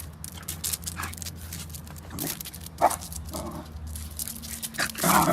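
A dog making several short vocal sounds, the sharpest about three seconds in and another just before the end, with small clicks between and a low steady hum underneath.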